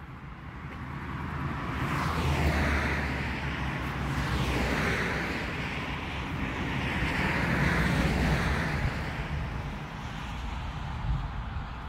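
Road vehicles passing, a rushing noise that swells and fades about three times over wind noise.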